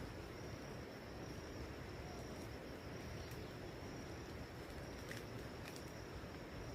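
Outdoor forest ambience: a steady high-pitched insect trill over a constant hiss, with a couple of faint clicks about five seconds in.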